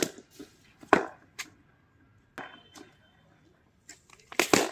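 Cricket ball striking the bat and bouncing on a concrete net pitch: a few sharp knocks, with a loud one about a second in and a quick cluster near the end.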